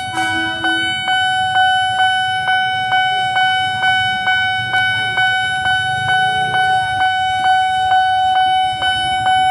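Railway level-crossing warning alarm at a commuter-rail crossing, sounding very loud and continuously: a steady high electronic tone pulsing about three times a second.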